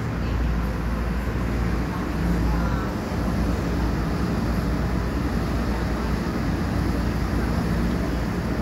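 Automatic car wash tunnel running as a car passes through: a steady low rumble of machinery and the rush of water spray, heard through the viewing window's glass.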